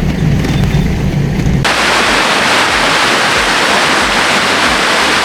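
Low rumble of a car on the road for about a second and a half, then a sudden cut to a loud, steady rush of water.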